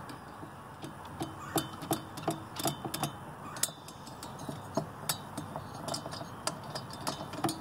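Scattered light clicks and taps, irregularly spaced, from a hand tool being fitted and handled on a partly dismantled chainsaw engine.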